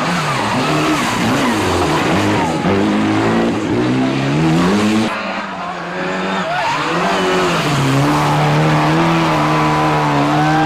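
Rally car engine accelerating hard, its pitch climbing for a couple of seconds and then cutting off abruptly as the driver lifts or shifts about five seconds in, then picking up again and holding a steady high note.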